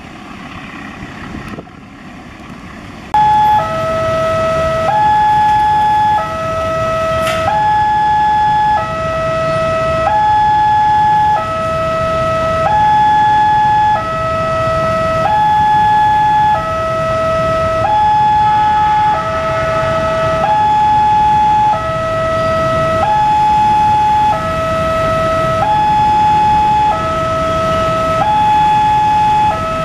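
Electronic two-tone railway level-crossing warning alarm, starting abruptly about three seconds in and alternating a higher and a lower tone, each held about a second. A low rumble runs beneath it.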